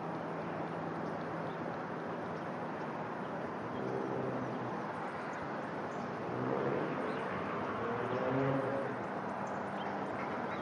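Steady outdoor background rush with a faint low hum. A few short pitched calls rise out of it about four seconds in and again between about six and nine seconds in.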